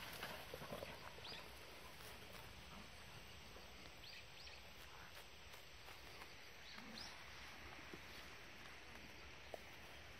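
Near silence: faint outdoor background with soft scuffles and paw steps of small dogs playing on dirt in the first second or so, and a few faint short high chirps scattered through.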